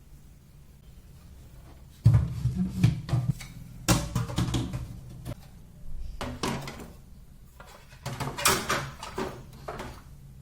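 Objects being handled and set down, giving several bursts of clattering and knocking that start about two seconds in, over a steady low hum.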